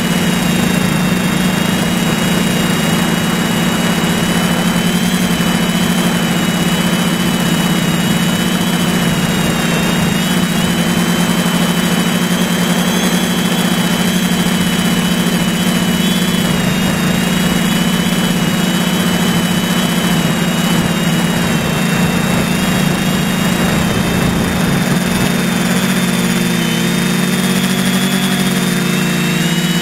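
Small drone's electric motors and propellers running steadily, heard through the camera on board: a loud hum under a thin high whine that wavers in pitch. Near the end the hum shifts and splits as the motor speeds change.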